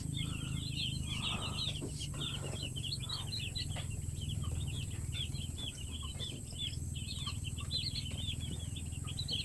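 A flock of young chicks in a brooder peeping constantly, many short high chirps overlapping, over a steady low hum.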